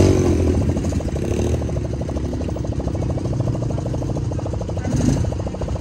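Motor-vehicle engine idling steadily, with an even, fast pulsing.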